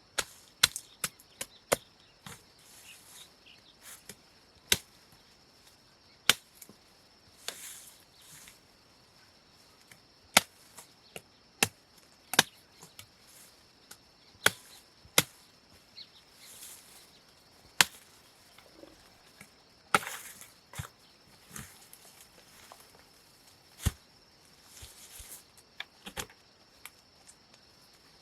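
Sharp, single chopping strikes of a blade into woody cassava stems, coming irregularly about every second or two, with brief rustling between strokes. A faint steady high hum runs underneath.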